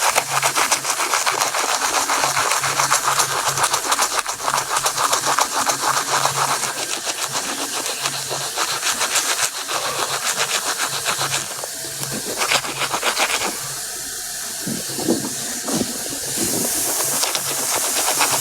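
Toothbrush scrubbing teeth in fast, even strokes, changing to a patchier, quieter scrubbing after about eleven seconds.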